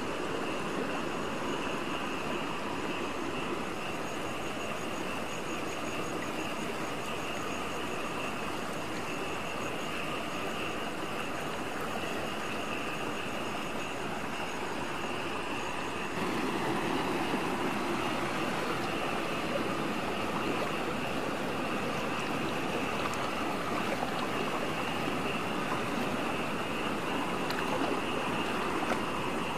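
Steady high buzzing chorus of night insects over the sloshing and trickling of shallow water being worked by hand; the water gets a little louder about halfway through.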